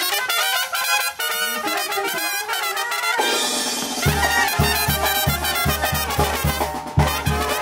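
Banda sinaloense brass band playing, with trumpets and trombones carrying the tune. About three seconds in the music changes abruptly, and a steady low bass beat comes in.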